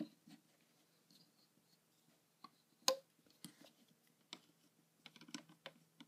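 Faint, scattered clicks and taps of a hook and rubber bands against the plastic pegs of a rubber-band loom, with one sharper click about three seconds in.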